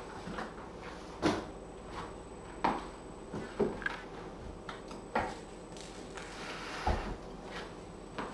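Irregular knocks and thuds of things being handled and set down on a hard floor, among them a cardboard cat scratcher being put in place; about five separate knocks, the sharpest a little over a second in and near three seconds in, with a duller low thump near the end.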